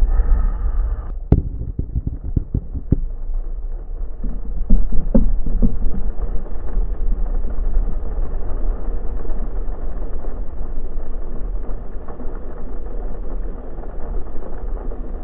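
A Chevrolet Blazer driving through heavy rain and standing floodwater: a steady rush of rain and spray against the vehicle over a low road rumble, broken by scattered sharp knocks and slaps of water. The water noise is loudest about five seconds in.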